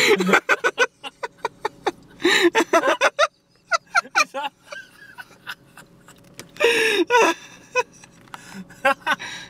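Rhesus macaque licking and mouthing the car window glass from outside, giving sharp wet clicks and smacks heard from inside the car, with people in the car gasping and laughing in short bursts.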